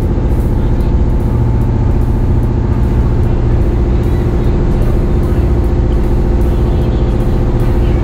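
Tour boat's engine running steadily under way, a constant loud hum with low engine tones.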